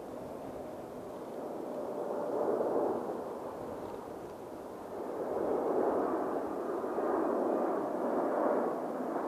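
Jet airliner engines making a broad rushing roar that swells about two seconds in, eases briefly, then builds again from about five seconds on.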